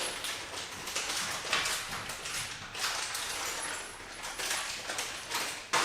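Irregular rustling, scraping and clattering of hardware being handled, with a sharper knock near the end.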